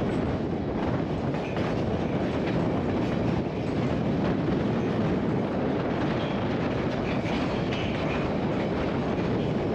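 White Pass narrow-gauge passenger train running along the track: a steady rumble of wheels on rails, with faint brief higher squeaks now and then.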